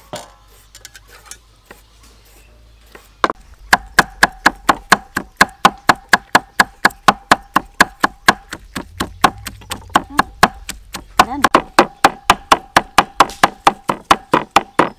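Cleaver chopping dried red chillies on a thick round wooden chopping block: rapid, even strokes at about four a second, starting about three seconds in.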